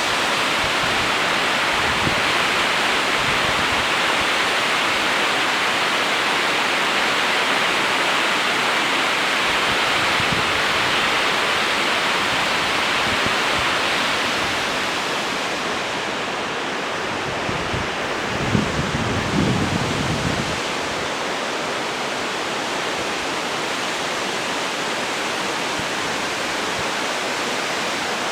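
Vasudhara Falls' water crashing down, a loud, steady rush that grows slightly duller about halfway through. There is a brief patch of low buffeting on the microphone about two-thirds of the way in.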